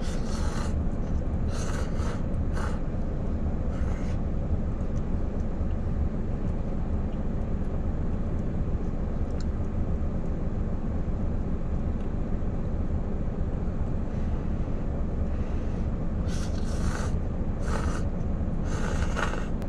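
Steady low rumble of a parked Hino truck's diesel engine idling, heard from inside the cab. A few short, soft noises of noodles being eaten come near the start and again near the end.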